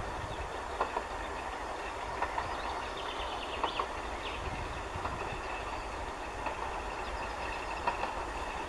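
Distant steam locomotive approaching along the line, a steady running sound with a few short, sharp clicks.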